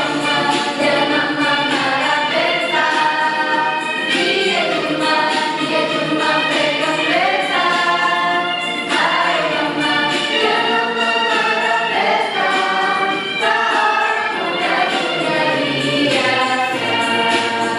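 Student choir singing in several voice parts, holding chords that move together and change every second or two.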